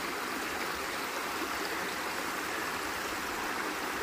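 Stream water running steadily over rocks, an even, unbroken flow.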